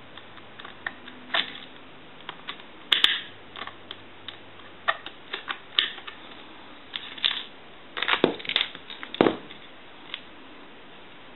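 Irregular clicks and light knocks of small hardware and tools being handled while brackets are removed from inside a vintage telephone, with a busier cluster of clicks near the end.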